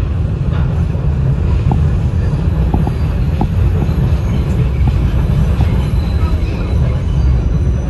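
Steady loud rumble of an R68 subway car running on elevated track, heard from inside the car, as another train passes close alongside. A few short, high squeaks come in the first half.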